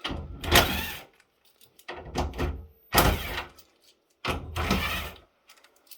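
Handling noise from parts being moved inside an opened rack switch chassis: four short bursts of rubbing and knocking, with quiet gaps between them.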